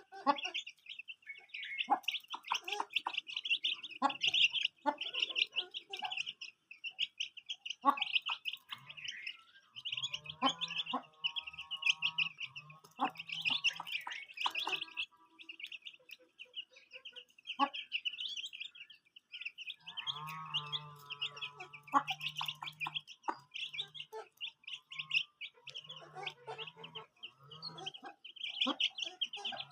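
A flock of poultry calling: many birds chirping rapidly and continuously, with scattered short clucks. Two longer drawn-out calls stand out, one about ten seconds in and one about twenty seconds in.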